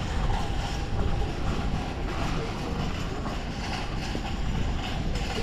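Steady low wind rumble on the microphone over faint outdoor city ambience.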